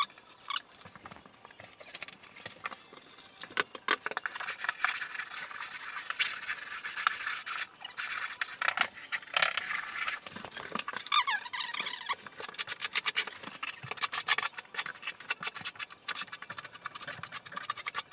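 Plastic uncoupling membrane being handled and pressed down into thinset on a floor: irregular rubbing, scraping and clicking with a few short squeaks, and a trowel scraping over the waffled mat near the end.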